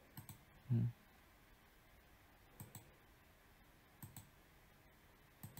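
Computer mouse clicking, mostly in quick pairs, four or five times over a few seconds. A short low thump about a second in is the loudest sound.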